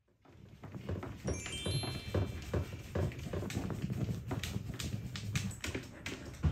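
Background music: an opening jingle with a quick rising run of chime-like notes about a second in, over a steady beat.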